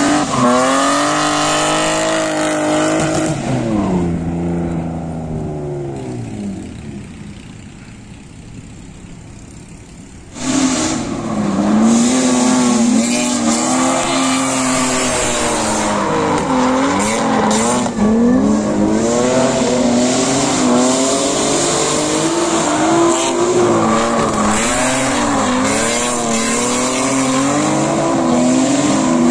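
BMW 3 Series drift cars sliding sideways, their engines revving up and down hard in quick bursts, with tyre squeal underneath. Early on the sound fades away, then about ten seconds in it comes back suddenly loud as two cars drift in tandem, revving and squealing continuously.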